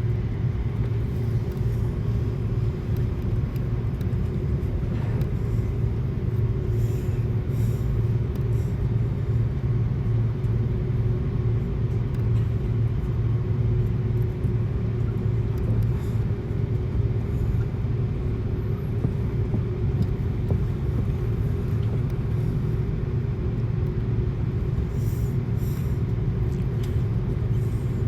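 Steady low drone inside the cabin of an Airbus A330-200 airliner, an unchanging rumble with a faint steady hum above it.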